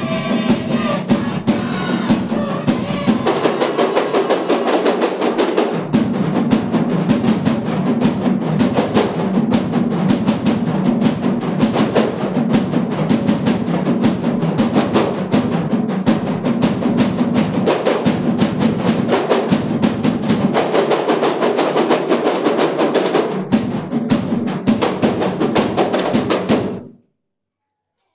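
A kompang ensemble: many Malay kompang frame drums beaten by hand in a fast, dense interlocking rhythm, with a large barrel drum struck along with them. The drumming cuts off suddenly near the end.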